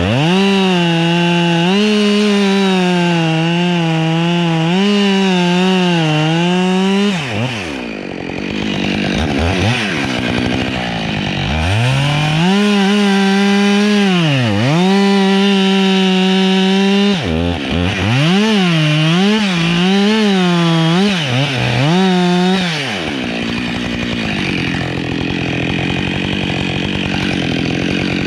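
Husqvarna 572XP two-stroke chainsaw cutting pine at full throttle, its pitch sagging and recovering as the chain bogs under load. It falls back to idle twice for a few seconds between cuts before revving up again.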